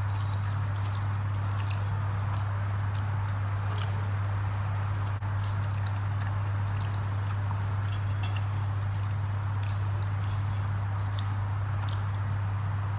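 Eating rice and curry by hand: soft wet clicks and smacks of fingers working the rice and of chewing, over a steady low hum.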